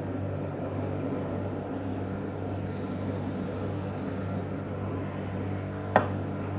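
A steady low background hum with a strong, even drone. A faint high hiss comes in for under two seconds in the middle, and a single sharp click about six seconds in is the loudest sound.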